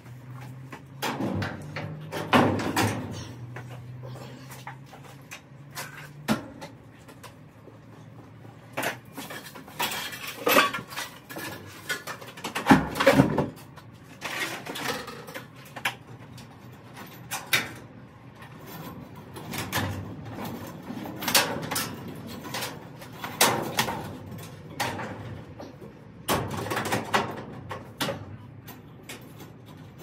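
Repeated metal clanks, knocks and rattles in clusters every second or two, from work on a jammed garage door's side track and hardware. A low steady hum runs underneath for the first six seconds and cuts off suddenly.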